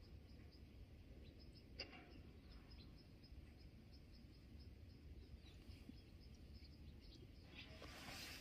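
Near silence: faint outdoor background with a thin, even high-pitched ticking about four times a second, one sharp click about two seconds in, and a brief rustle near the end.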